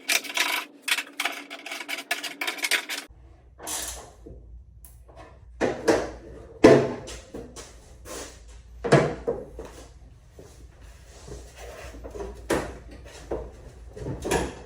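Rapid clicking of tools working a fastener, then, after an abrupt change about three seconds in, a series of separate knocks and clunks as tools and the fender hardware are handled. The last stretch runs over a low background hum.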